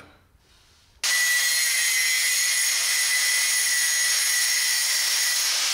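Electric grinder starting about a second in and grinding steadily on the steel edge of a cup-style oil filter wrench, thinning it so it will fit between the filter and the exhaust pipes. It is a steady high grinding sound with no change in pitch.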